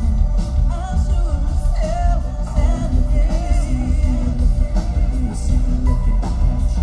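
Live trip-hop band playing: a woman sings a wavering melody over heavy bass, drums and cymbals. Recorded on a phone from within the crowd.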